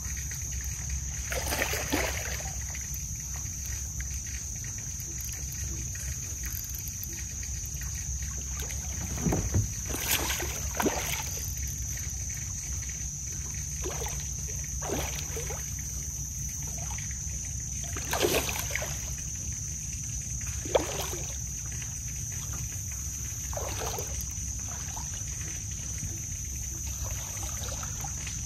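A hooked smallmouth bass splashing and thrashing at the water's surface beside a kayak, in short irregular bursts during the fight, over a steady high insect drone.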